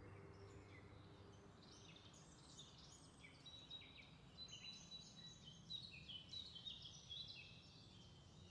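Near silence, with faint high bird chirps in the background from about a second and a half in until shortly before the end.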